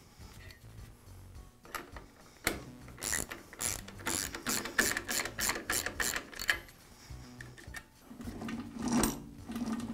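Jet drill press quill feed mechanism being worked to test the newly tensioned return coil spring: a run of sharp clicks, about three a second, through the middle, then a rattling stretch near the end as the quill travels.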